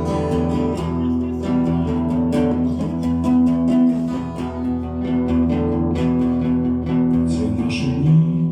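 Guitar strummed in the instrumental close of a rock song, with held chords under regular strokes.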